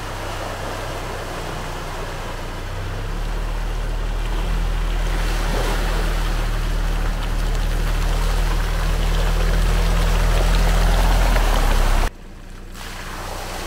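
Quad bike on big low-pressure tyres wading through shallow bog water: its engine runs steadily under the rush and splash of water thrown up by the wheels, growing louder as it comes closer. Near the end the sound drops suddenly to a quieter wash of water and engine.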